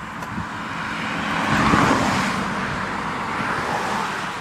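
A car drives past on the road: tyre and engine noise builds to its loudest about two seconds in, then fades away, with no horn.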